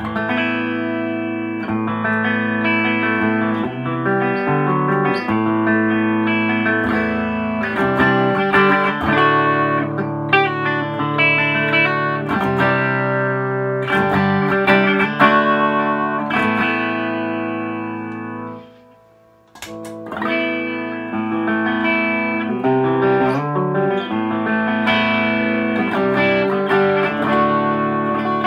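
Electric guitar played through a Bogner Shiva tube amp fitted with new TAD EL34B-STR output tubes that are not yet biased: sustained chords and single notes. About two-thirds of the way through, a note dies away and the playing stops for about a second before it resumes.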